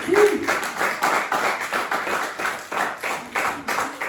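A small audience clapping hands, fairly evenly at about three claps a second, with a brief voice near the start.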